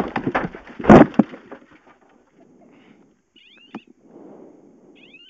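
A rally car crashing as it rolls: a heavy impact about a second in, then scraping and rattling of the car settling in a ploughed field. Near the end a rapid electronic chirping alarm starts, short rising beeps repeating several times a second.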